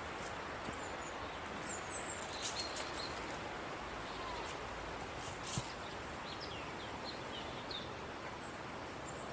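Steady outdoor background noise with small birds chirping in short high calls, and a few sharp clicks, two of them close together about two and a half seconds in and one more louder one past halfway.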